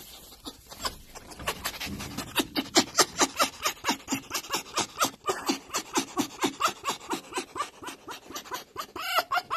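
Red fox making rapid, breathy panting 'laughs', about four or five huffs a second, starting a couple of seconds in: the excited greeting sound of a happy tame fox.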